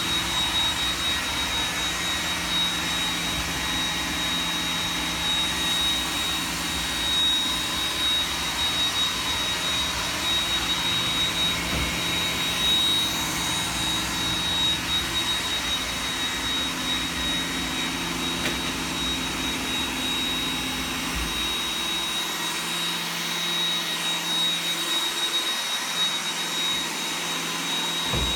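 Robot vacuum cleaner running with a steady high-pitched whine over its motor and brush noise, with a few brief knocks as it bumps into things. The deep rumble underneath drops away about two-thirds of the way through.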